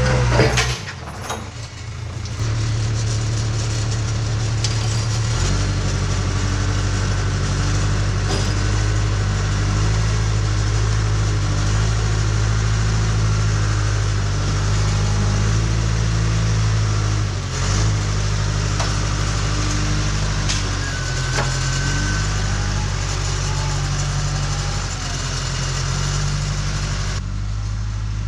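John Deere 310C backhoe's diesel engine running steadily, with a brief dip in level about a second in.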